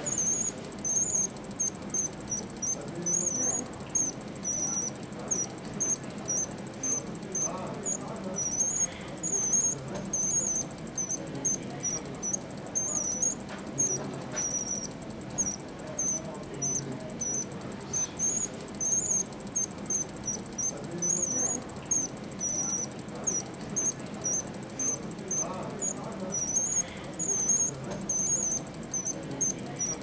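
Jaquet Droz Charming Bird singing-bird automaton wristwatch warbling: a rapid, unbroken string of short high chirps and trills, two or three a second, each rising and falling in pitch.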